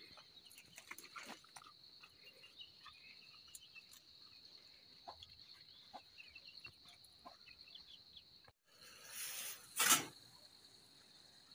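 Faint outdoor ambience: a steady high-pitched insect trill with scattered small clicks, broken about ten seconds in by a short, loud rush of noise.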